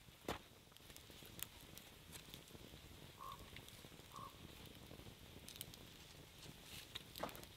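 Near silence with the small log campfire crackling faintly: a few scattered sharp clicks. Two short soft tones sound about a second apart midway.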